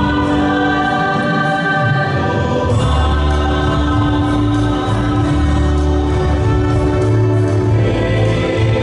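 A church congregation and choir singing a hymn together, long held notes moving to new chords about every few seconds over a deep bass.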